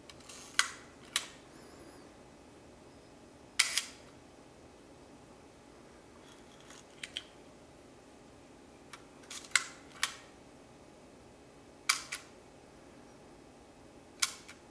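Flash Kodamatic leaf shutter of a Kodak Reflex II twin-lens reflex camera being cocked and released by hand: sharp mechanical clicks every few seconds, some in quick pairs.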